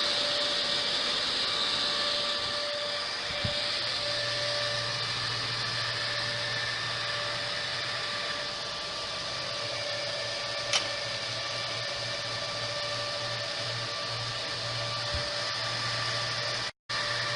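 Dell PowerEdge R720 server's cooling fans running steadily while the server boots: an even whirring rush with a faint whine. The sound cuts out for a moment near the end.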